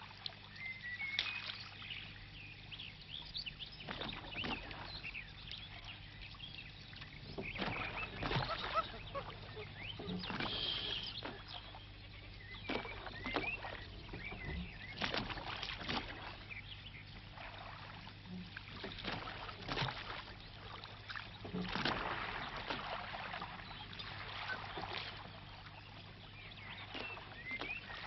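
Water splashing and swishing as a wooden boat is punted along with a pole, in uneven strokes every few seconds, over a faint steady hum.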